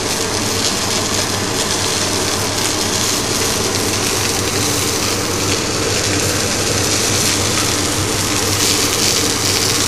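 Salmon fillet sizzling steadily in a hot frying pan, the heat turned off and the pan's remaining heat still cooking it, over a steady low hum.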